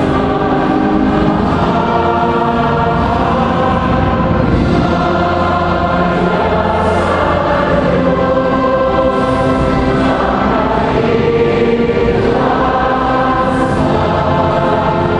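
Church choir singing, with long held notes.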